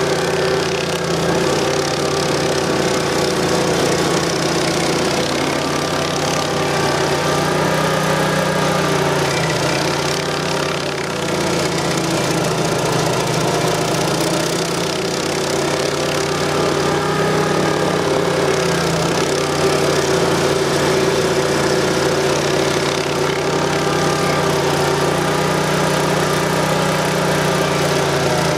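Vermeer SC252 stump grinder's 20 HP Honda V-twin gas engine running steadily under load while its Greenwheel cutter wheel grinds a tree stump into chips.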